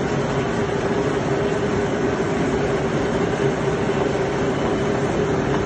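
Ikegai engine lathe running, a steady mechanical hum with one constant tone held throughout.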